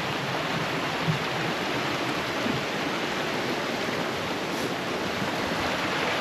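River running: a steady rush of flowing water.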